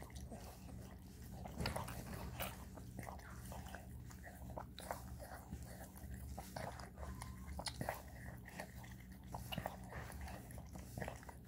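Italian greyhound mother licking and cleaning her newborn puppy: faint, irregular wet licking and smacking sounds that come and go, over a steady low hum.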